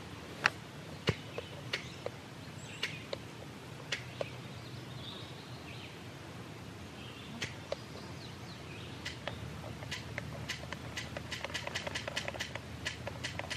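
Sharp clicks of a Thermacell mosquito repeller's push-button igniter being pressed over and over while it fails to light: a few scattered clicks at first, then a quick run of them, several a second, over the last few seconds. Faint birdsong underneath.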